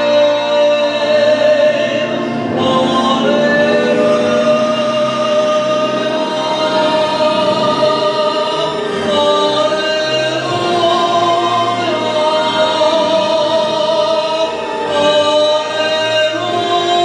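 A man singing a gospel-style hymn solo, holding long notes that move from pitch to pitch, over musical accompaniment.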